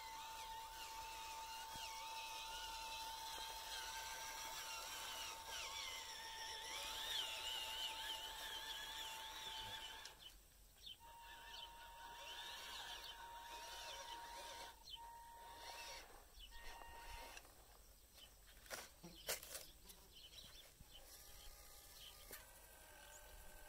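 Faint, steady whine of a small electric RC motor and gearbox (a 180-size brushed motor), which cuts out and back in a few times in the second half. A few sharp clicks near the end.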